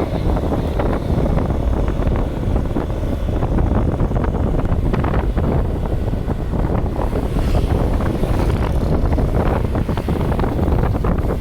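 Wind buffeting the microphone: a loud, steady low rumble with rough crackling throughout.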